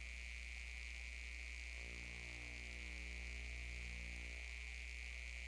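Faint steady electrical hum with a thin, steady high-pitched whine and no programme sound: the noise floor of a VHS videotape where one recording has cut off and the next has not yet begun.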